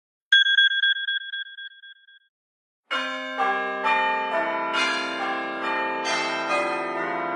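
iPhone classic alert and ringtone sounds. About a third of a second in, a single bell-like ding rings and fades away over about two seconds. About three seconds in, a ringtone of many overlapping bell strikes begins and keeps ringing, like a peal of church bells.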